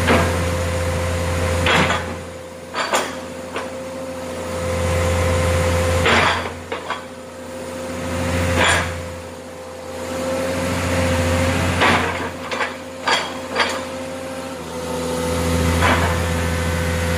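Komatsu excavator's diesel engine and hydraulics running with a steady whine, swelling and easing several times as the log grapple is opened and closed. About ten sharp metallic knocks and clanks come through at irregular intervals.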